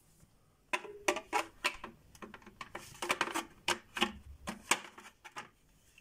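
Hard plastic clicking and knocking as a Dyson cordless vacuum's plastic charging dock is pushed onto its wall-mounted bracket and snapped into place: a quick, irregular string of about a dozen clicks over some five seconds.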